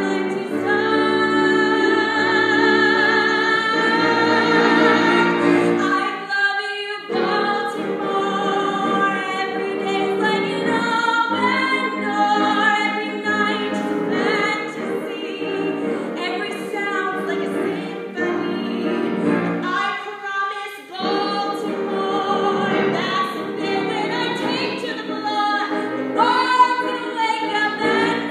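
A woman singing a musical-theatre solo over instrumental accompaniment, with long held notes sung with vibrato.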